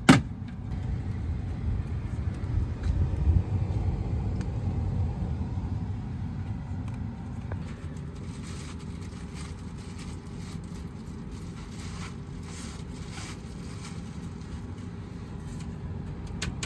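Car on the move, heard with a low road rumble. A sharp click comes right at the start, and scattered light clicks and knocks follow in the second half.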